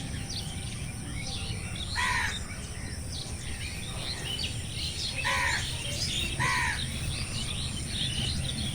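A chorus of many birds chirping and twittering. A louder, lower call rings out three times, a few seconds apart, over a steady low rumble and a thin steady high-pitched tone.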